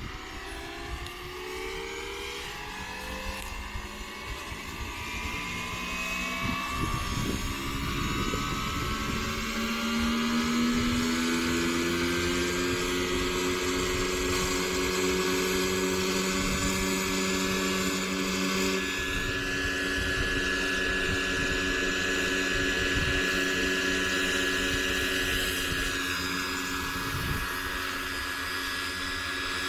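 Electric RC model AW139 helicopter, driven by a Kontronik Pyro 800-48 brushless motor through a PSG Dynamics scale gear mechanism, spooling up. The whine of the motor and gears rises in pitch over the first ten seconds or so as the rotors come up to speed. It then runs steady at flight speed, and the model lifts into a hover near the end.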